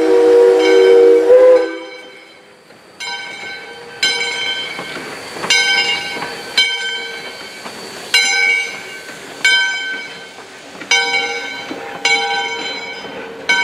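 Steam locomotive No. 40's whistle sounding a chord, cut off just under two seconds in; then the locomotive's bell ringing steadily, a little over one strike a second, as the engine and its coaches roll slowly past.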